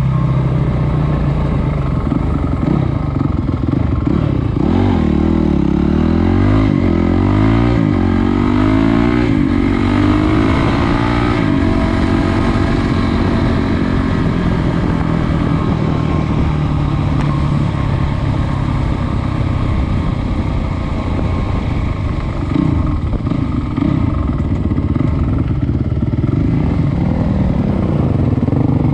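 Trail bike engine running under way, with the pitch rising and falling repeatedly as it revs through the first dozen seconds, then running more steadily.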